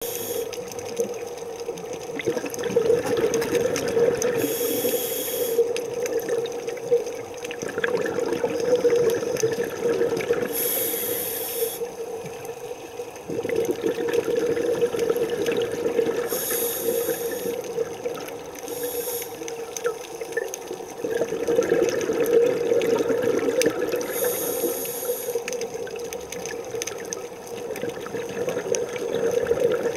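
Scuba diver breathing through a regulator underwater: a short hissing inhale about every six seconds, each followed by a longer bubbling exhale, over a steady hum.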